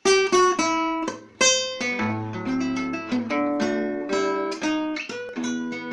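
Classical acoustic guitar played solo: a run of plucked single notes and strummed chords, each ringing on, opening suddenly with no singing over it.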